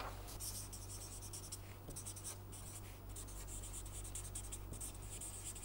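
Felt-tip marker writing on paper: faint, quick scratchy strokes as words are written by hand, over a steady low hum.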